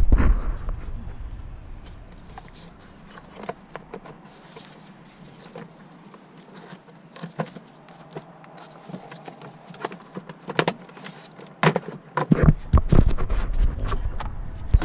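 Scattered clicks and knocks of hard plastic steering-column trim being worked loose and unclipped by hand, with heavier handling thumps near the start and again in the last few seconds.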